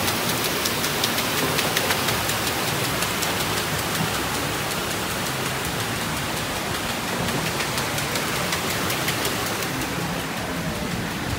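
Water rushing and splashing steadily as a wooden water wheel turns in a stream, with a dense patter of small splashes and drips throughout.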